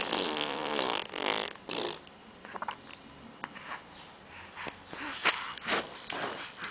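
Baby blowing a raspberry: lips and tongue buzzing in a long wet sputter at the start, then shorter sputters.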